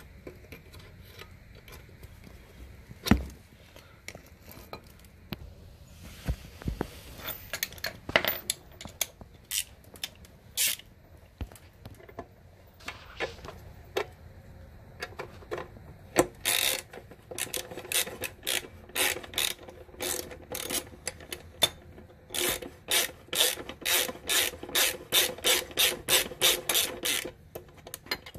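Socket ratchet clicking in short back-and-forth strokes as it loosens a motorcycle's rear torque link bolt, a wrench holding the other side. The clicks come sparsely at first and grow into a fast steady run in the second half, after a single knock about three seconds in.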